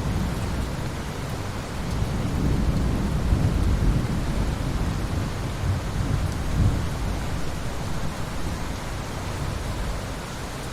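Rain falling steadily in a forest, with a deep low rumble under it that swells about two seconds in.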